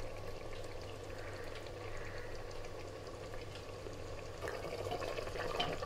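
Mutton and cauliflower curry simmering faintly in an open pressure cooker, a soft even bubbling with a low steady hum underneath. A few faint clicks come in near the end.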